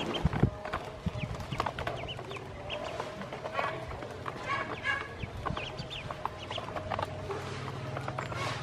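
Ducklings pecking feed off the bottom of a plastic basin, their bills making many quick taps on the plastic, with scattered short peeps. A low steady hum runs underneath, stronger in the second half.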